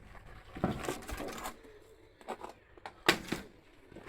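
Clicks, knocks and rustling of TV parts and sheets being handled during the teardown of a Toshiba REGZA LCD television, with one sharp knock about three seconds in.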